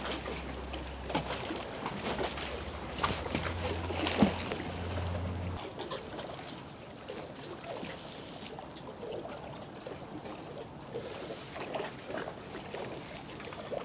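Water lapping and splashing at the water's edge, with scattered small splashes and knocks. A low steady hum under it cuts off suddenly about five and a half seconds in, and the water sounds are quieter after that.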